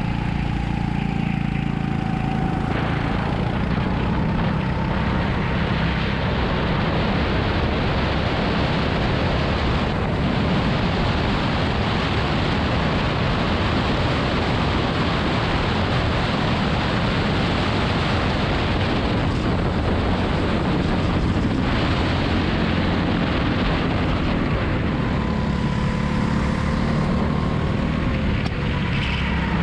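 Go-kart engine running at racing speed, heard onboard, its revs rising and falling.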